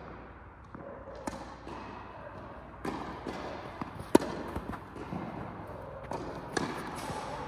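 Tennis balls struck by rackets and bouncing on a hard court: a string of sharp, irregularly spaced hits, the loudest about four seconds in.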